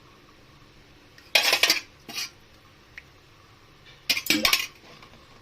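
Metal cookware and utensils clinking and clattering against a kadai in short bursts: about a second in, again just after two seconds, and about four seconds in, with a single small click between.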